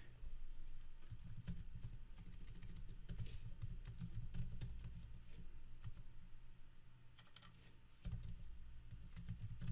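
Typing on a computer keyboard: quick runs of key clicks, with a lull of about two seconds past the middle before the typing picks up again.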